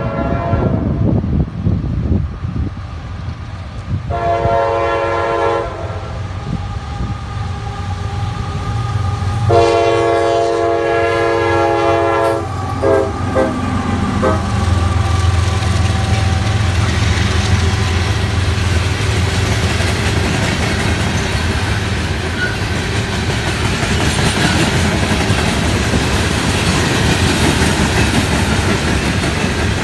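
CSX coal train's diesel locomotive horn sounding for a grade crossing: a blast ending just after the start, another about four seconds in, a longer one near ten seconds, then a few quick short toots. From about fourteen seconds the locomotive's engine rumbles steadily as the coal cars roll past with wheel clatter.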